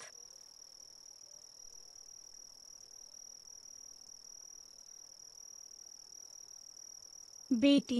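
Crickets chirring faintly in a steady, unbroken high-pitched trill: a night-time insect ambience.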